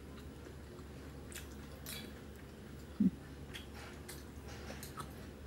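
Faint scattered clicks and crackles of chopsticks handling crisp, panko-battered fried silkworms over a plate, with one short low bump about three seconds in.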